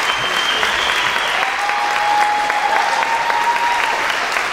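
Large audience clapping in a standing ovation, a dense steady patter of many hands, with a couple of long held tones, first a high one and then a lower one, rising above it.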